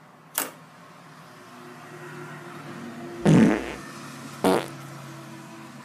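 A green CNC aluminium pivot clutch lever on a dirt bike's handlebar being worked by hand while it is pulled and pushed forward on its folding pivot. There is a sharp click less than half a second in, a louder dull thump a little past three seconds, and another sharp click at about four and a half seconds, over a faint steady hum.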